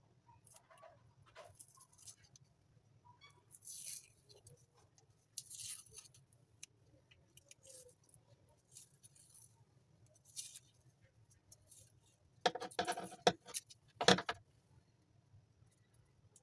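Light handling noises as white tape is wrapped around a thin metal rod: short scattered rustles and small clinks, with a few louder crinkling bursts of the tape in the last few seconds.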